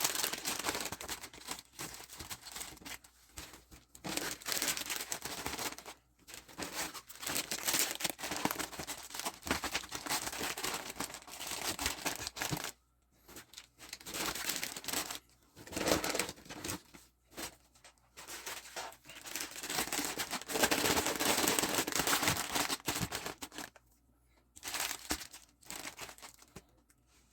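Plastic packaging crinkling and tearing as items are unwrapped, in stretches with short pauses between.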